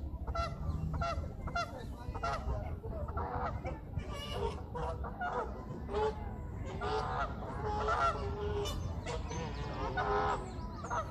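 Geese honking repeatedly off-camera: a string of short, nasal calls, a dozen or so, some overlapping, over a low background rumble.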